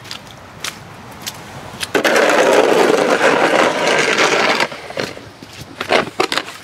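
Snow shovel scraping along wet, slushy asphalt in one long push of nearly three seconds, starting about two seconds in, followed by a few short knocks and scuffs near the end.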